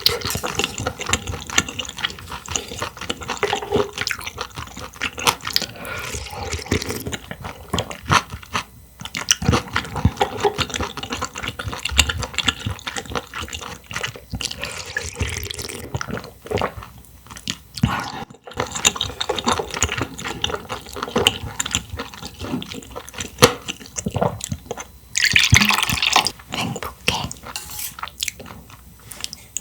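Close-miked wet eating sounds of clams and clam soup: many small clicks and wet liquid noises, with a louder wet stretch about 25 seconds in.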